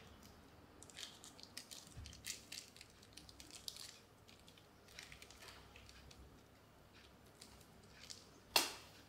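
Quiet crinkling and ticking of a small clear plastic bag being handled in the hands, in a flurry of little clicks. Near the end comes a single sharp tap.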